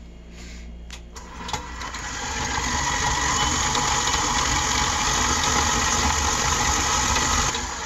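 KitchenAid 8-quart commercial stand mixer with its 1.3 HP motor, running its flat beater through cooked chicken in the stainless steel bowl to shred it. The sound builds over the first couple of seconds, runs steadily, and stops shortly before the end.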